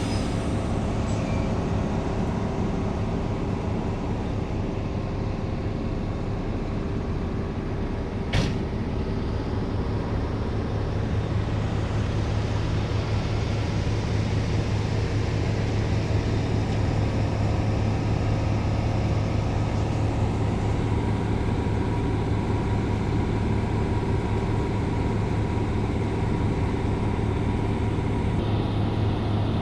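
A steady low mechanical hum with no breaks, and one sharp click about eight seconds in.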